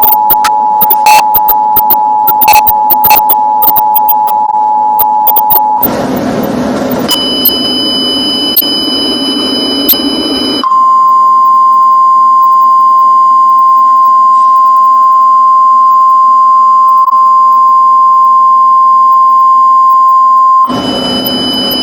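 Emergency Alert System alarm, played loud. The steady two-tone attention signal sounds for about six seconds. A few seconds of static with faint high whines follow. Then a single steady alert tone is held for about ten seconds and cuts off into static near the end.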